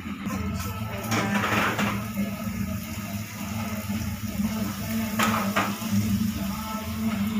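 Puri deep-frying in hot oil in a wok, sizzling as a spatula presses it, with a couple of short knocks of the utensils against the pan about a second and a half in and about five seconds in, over a steady low hum.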